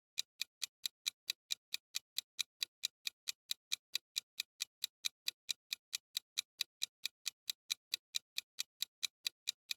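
Clock-style ticking sound effect of a quiz countdown timer: a steady run of sharp ticks, about five a second.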